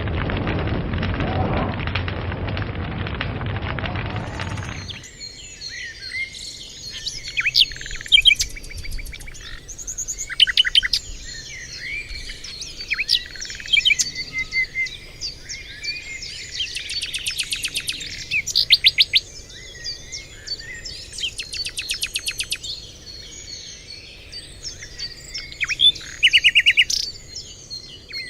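A fire crackling for about the first five seconds, cut off abruptly, then many birds chirping and singing, with short calls and rapid trills overlapping.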